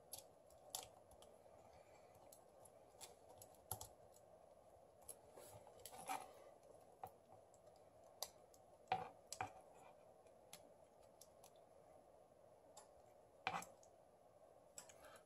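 Faint, irregular small clicks and taps of Samsung Galaxy S7 Edge parts being pressed and snapped into the phone's frame by hand, with a louder pair of clicks about nine seconds in and another near the end as the screen assembly is pressed down. The assembly is not sitting down right.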